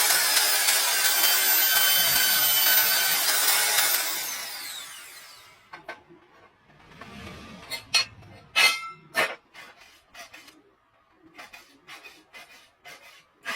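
Power tool, likely the homemade drilling machine, running with a dense, harsh hiss that winds down and fades out about four to five seconds in. Scattered clicks and knocks follow.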